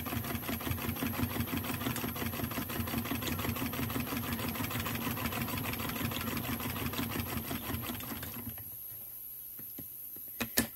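Vintage New Home Improved Home Companion hand-crank sewing machine, which she dates to around 1886, stitching through fabric as the crank is turned: a rapid, even mechanical clatter that stops about eight and a half seconds in. A couple of sharp clicks follow near the end.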